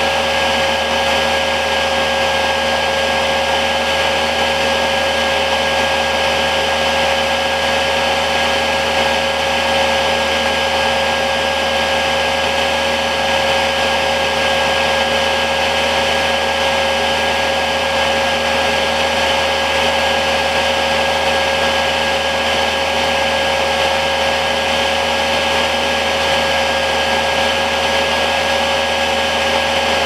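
Chinese diesel heater running after ignition, its combustion-air blower fan spinning at about 4,700 rpm: a steady, even rushing hum with a few fixed whining tones.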